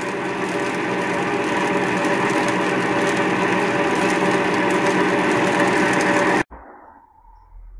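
Adcock & Shipley 1AG milling machine's drive running with the rear pulley off, its output shaft spinning in the rear bearing: a steady mechanical rumble with many steady tones, which stops abruptly about six and a half seconds in. The rumble is the noise that the owner traced to a failed rear output-shaft bearing, short of grease.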